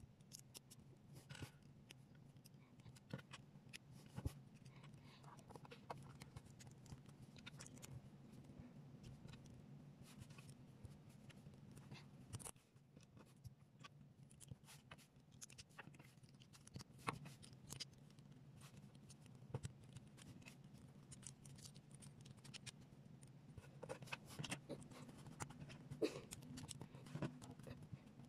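Small plastic building bricks being handled and pressed together: scattered light clicks and snaps, more of them near the end, over a faint steady low hum.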